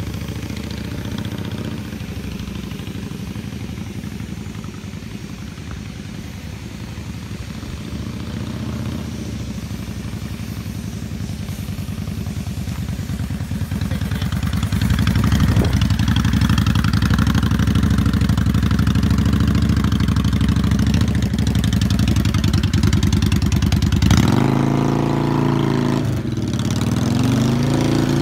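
2000 Yamaha XVS650 Classic's air-cooled V-twin engine running as the motorcycle is ridden, getting louder about halfway through as it comes closer. Near the end it switches abruptly to the engine heard close up, its pitch rising and falling.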